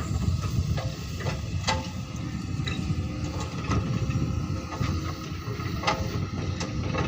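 Hydraulic rock breaker on a Doosan excavator hammering on hard rock: a steady low pounding with a sharp metallic clank every second or two.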